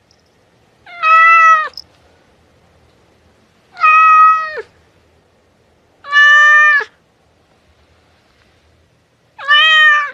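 Domestic cat meowing four times, a couple of seconds apart. Each meow lasts under a second, holds a steady pitch and drops away at the end.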